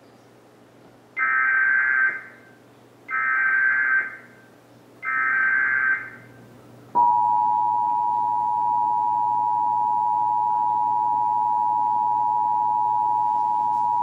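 Emergency Alert System broadcast signal from a television: three one-second bursts of the screeching digital SAME header data, then from about seven seconds in the steady two-tone attention signal (853 and 960 Hz), held without a break.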